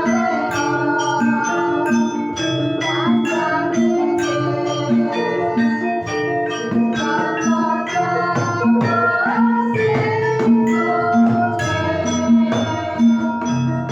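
Javanese gamelan ensemble playing: struck bronze metallophones ringing in a steady pulse over regular kendang drum strokes, with a melody gliding between notes above them.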